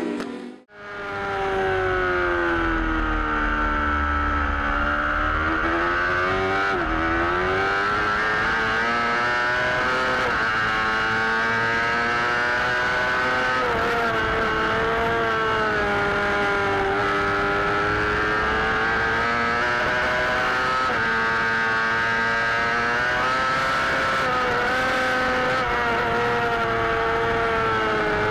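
Suzuki GSX-R600 race bike's inline-four engine at high revs, heard from onboard, its pitch sliding down and back up again and again with throttle and gear changes through the corners. The engine sound starts after a brief gap near the beginning.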